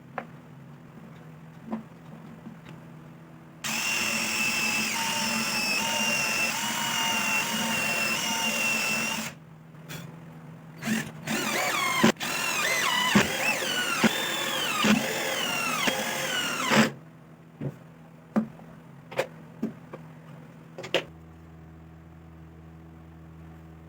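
Handheld power tool motor running in two bursts of about five seconds each, with short trigger blips between them. The first run holds a steady whine; in the second the pitch wavers as the tool takes load. Separate knocks and clicks come before and after.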